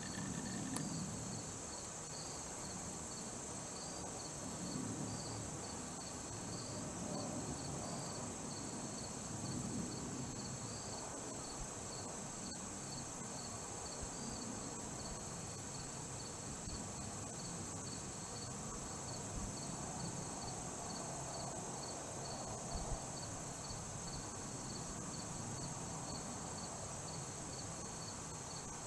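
Chorus of insects in the woods: a steady high-pitched drone with a separate repeating chirp at a lower pitch running through it.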